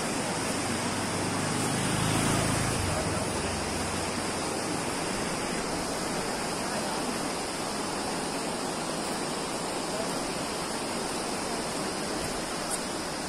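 Steady rush of a fast, rocky whitewater river, with a low rumble swelling briefly about two seconds in.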